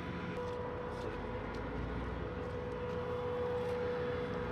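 Armored vehicle's engine running steadily with a constant whine, and a few faint clicks.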